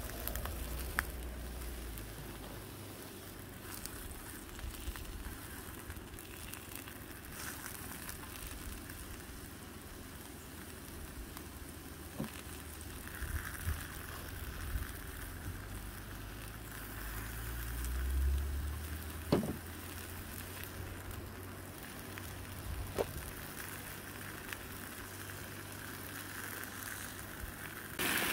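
Capsicum and mushrooms sizzling in a frying pan on a portable gas canister stove, with a few light knocks as the mushrooms go in. About halfway through comes a hiss of cooking-oil spray from an aerosol can.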